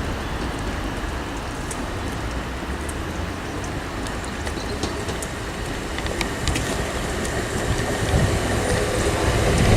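Class 387 electric multiple unit arriving: a steady rumble of wheels on rail that grows louder toward the end, with faint clicks and a thin high tone coming in about six seconds in.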